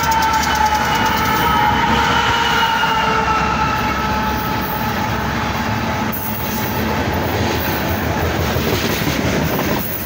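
Loaded BNSF coal train passing close, led by GE ES44AC locomotives. In the first few seconds the locomotives give a high tone that drops slightly in pitch and fades. Then the loaded coal hopper cars roll by with a steady rumble and wheel clatter.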